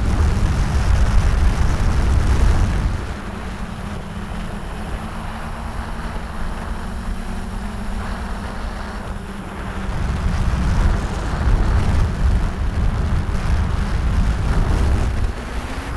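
A DJI F550 hexacopter's six brushless motors (Propdrive 28-30S 900KV) spin 10x5 propellers in flight, giving a steady droning hum. This is heard through the onboard camera's microphone, with heavy low rumbling buffeting in the first three seconds and again from about ten seconds in.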